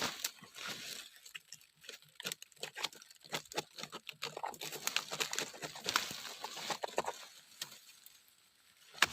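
Dry leaf litter and twigs rustling and crackling, with many irregular sharp clicks, as someone works through the forest floor by hand.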